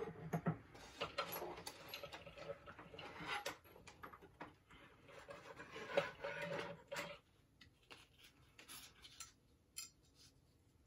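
Light clicking and rubbing of items being handled on a workbench, dying down to a few scattered faint ticks about seven seconds in.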